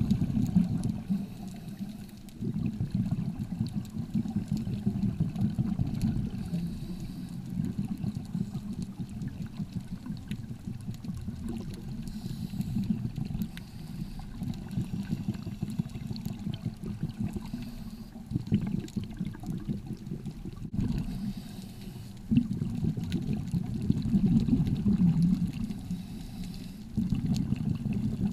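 Underwater ambience picked up by a submerged action camera: a low, uneven rumble of moving water with some bubbling, swelling and dipping and changing abruptly a few times.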